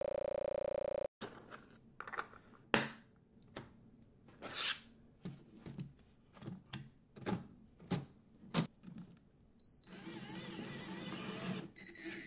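Lego Technic plastic parts clicking and snapping together as tracks and wheels are handled and fitted to a chassis: a run of separate sharp clicks, one much louder about three seconds in. A short steady buzzing tone sounds for about the first second and stops abruptly. About ten seconds in, a small motor starts a steady whirring.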